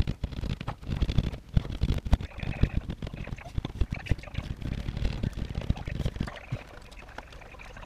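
Hand drywall saw cutting a circular hole in a gypsum drywall ceiling: quick, irregular rasping strokes of the blade through the board.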